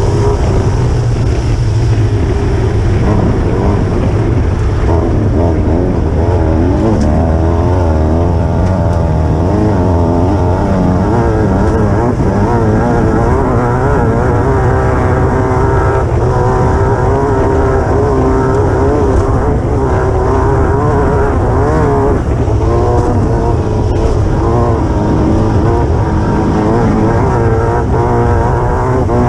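Class 9 desert race buggy's engine running hard from onboard, its pitch rising and falling continually as the throttle and revs change over rough ground, with a few short knocks from the chassis.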